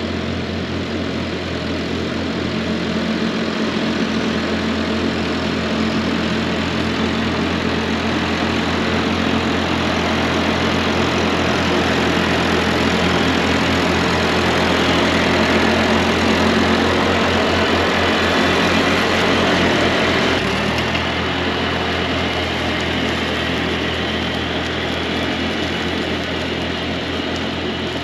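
1948 Ford 8N tractor's four-cylinder flathead engine running steadily while mowing, driving a PTO-powered finish mower. The sound shifts slightly about twenty seconds in.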